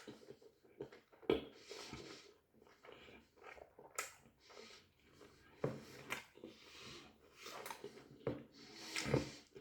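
A person eating a doner kebab: irregular chewing and breathing noises, with several sharp louder bursts, the loudest near the end.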